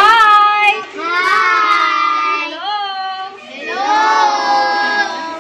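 A group of children singing together in high voices, in about four long phrases with held, gliding notes.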